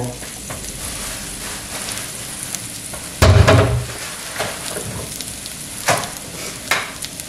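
Sliced sausage and green vegetables sizzling and crackling in a cast-iron skillet, with a brief thump a little after three seconds in and two sharp pops near the end.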